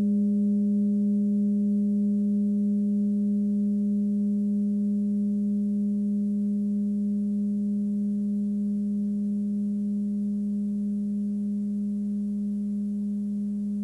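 An 18 cm hand-forged Sun Moon singing bowl ringing out at its G# fundamental of about 205 Hz, with two fainter higher overtones above it. It is a steady hum that slowly fades away.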